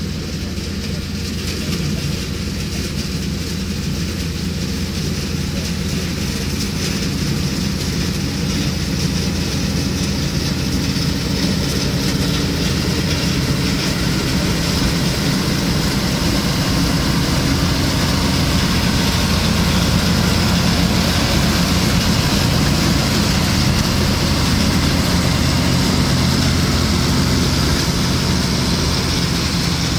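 Sambo Rosenlew 410 combine harvester at work cutting and threshing grain: a steady engine drone under the broad noise of the threshing machinery, growing gradually louder as the combine comes closer.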